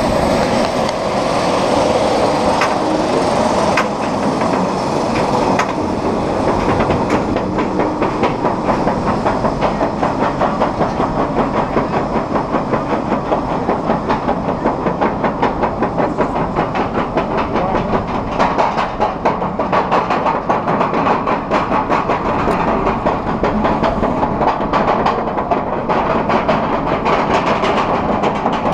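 Bolliger & Mabillard roller coaster train climbing its chain lift hill: the lift chain and anti-rollback clatter make a fast, even clacking, several clacks a second, over a steady mechanical rumble.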